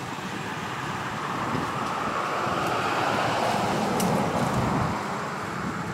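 A road vehicle passing by: a steady rush of noise that swells to its loudest about four seconds in and then fades.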